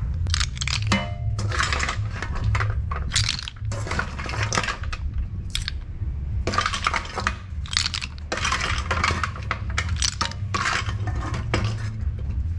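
Cooked snail shells clattering and clinking as a metal spoon scoops them out of a metal pot and tips them into a plastic colander, the clicks coming in quick irregular runs again and again, over a low steady hum.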